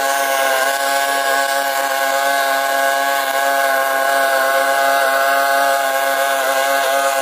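Earthquake walk-behind string mower's small gas engine running steadily at a constant speed while it cuts through tall weeds and grass.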